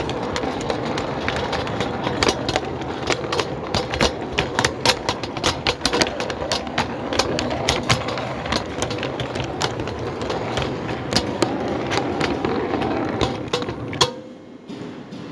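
Model train running on the layout's track: a steady rolling rumble with many irregular clicks as the wheels cross rail joints and turnouts, which drops away suddenly about 14 seconds in.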